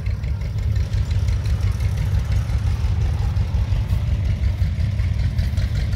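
Engine idling, a steady low rumble.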